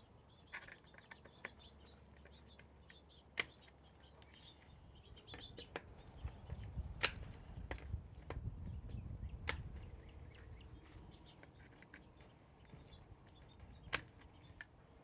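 Faint tool handling as the handguard bolts are tightened to 30 inch-pounds: a few single sharp clicks several seconds apart, with quieter low rattling and rubbing in the middle stretch.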